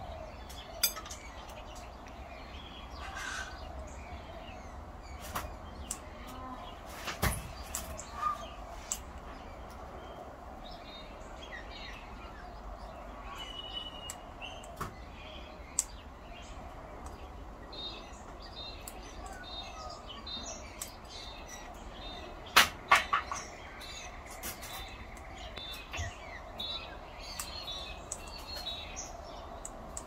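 Scattered sharp knocks and taps, with a quick loud cluster about two-thirds of the way through, from birds banging and dropping things on a veranda roof and in an overhanging tree. Small bird chirps run throughout.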